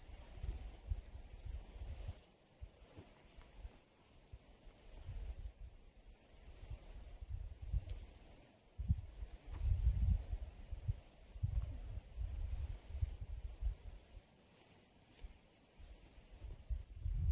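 A high, thin insect trill, probably a cricket, repeating in pulses about once a second over uneven low wind rumble on the microphone that comes and goes in gusts.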